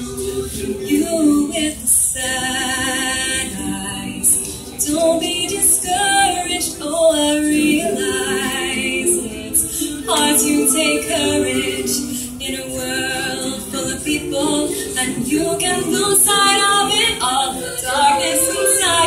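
Mixed choir of men and women singing a cappella, holding long chords with several voice parts at once.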